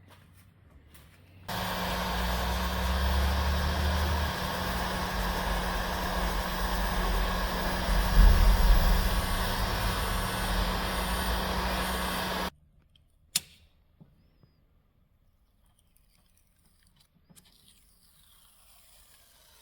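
A workshop machine runs with a steady hum and a loud hiss for about eleven seconds, switching on and off abruptly, followed by a single sharp click.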